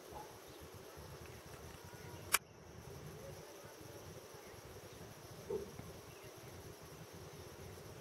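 Steady high-pitched chorus of insects, with a single sharp click a little past two seconds in.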